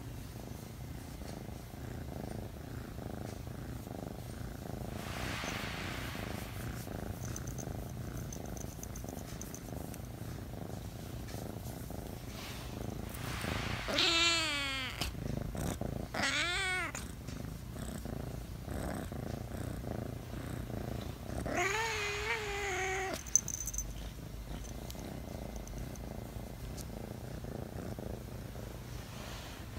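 Domestic cat purring steadily while being petted. Around the middle it breaks into two short, wavering meows, and about three quarters of the way through it gives one longer meow. A single sharp click follows just after the last meow.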